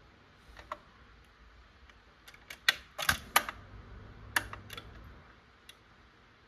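Panasonic SL-790 automatic record changer's mechanism clicking and clunking, a scatter of sharp mechanical clicks with the loudest cluster, including a duller knock, about three seconds in.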